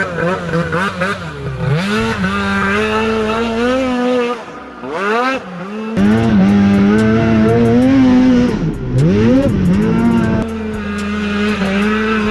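Snowmobile engine revving on the track, its pitch dropping off and climbing back up several times as the throttle is worked, with a brief lull about four to five seconds in.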